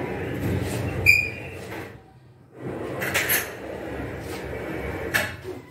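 A tall refrigerator being dragged across the floor in two pushes, a scraping rumble that breaks off briefly about two seconds in. There is a short ringing clink about a second in and a knock near the end.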